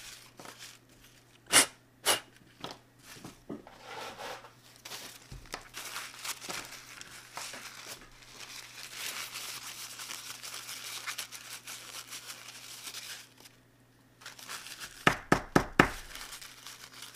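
Paper tissue rustling and crinkling as a small flash drive circuit board is wiped clean by hand. Two sharp taps come about two seconds in, and a quick run of them near the end.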